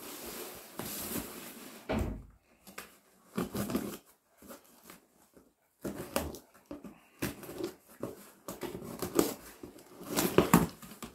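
A knife slitting packing tape on a cardboard box, with the box rustling and scraping in short bursts, and a dog whining at times.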